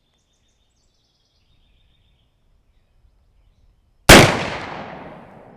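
A single shot from a Pietta 1858 New Model Navy .36 caliber percussion revolver loaded with 25 grains of 3F black powder, about four seconds in. The sharp report rings out and fades away over more than a second.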